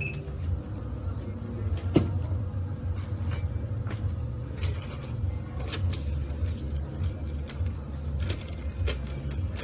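Steady low rumble of shop background noise, with scattered light clicks and knocks of items being handled at a checkout counter and one sharp click about two seconds in.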